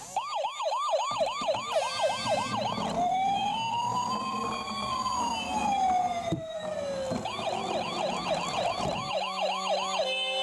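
Electronic emergency-vehicle siren in yelp mode, fast up-and-down sweeps about four a second, switching to one slow wail that rises and falls, then back to the fast yelp. A low rumble runs underneath, and music comes in near the end.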